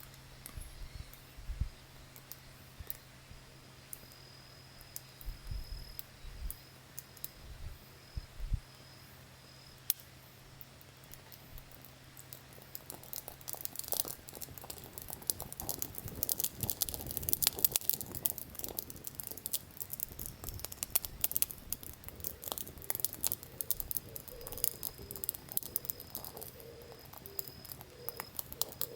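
Campfire catching from tinder: a few scattered pops and low thumps at first, then from about halfway dense crackling as the wood takes flame.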